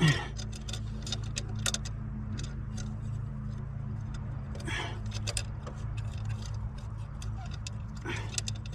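Scattered small metallic clicks and taps of horn bolts, washers and mounting hardware being handled and worked loose, over a steady low hum.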